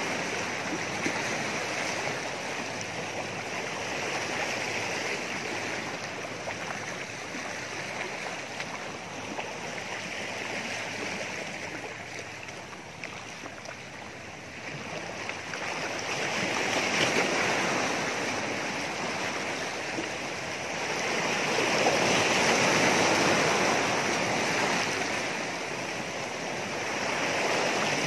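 Small sea waves washing against a rocky shore: a continuous rush of water that swells and eases, louder for a few seconds at a time in the second half.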